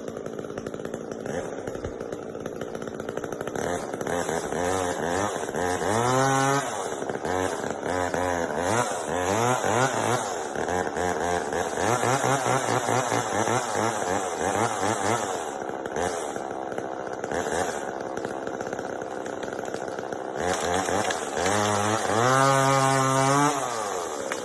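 Chainsaw engine running, revved up and let back down again and again, with a run of short quick throttle blips in the middle and a long high rev near the end.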